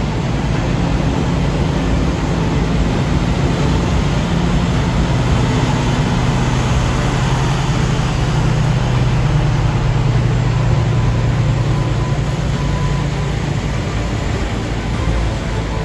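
Heavy diesel engines running steadily: a constant low hum over road noise, a little louder in the middle.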